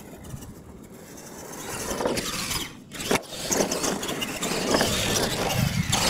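R/C monster truck driving over dirt: its motor and tyres on the ground, getting louder about two seconds in as it comes nearer.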